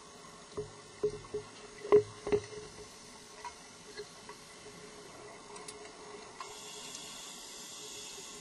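Handling noise through an underwater camera housing: a quick run of sharp knocks and clicks, the loudest about two seconds in, then a steady hiss near the end.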